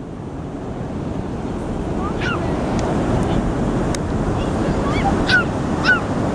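Ocean surf and wind on the microphone, a steady rush, with a small dog giving several short high-pitched yaps: one about two seconds in and three close together near the end.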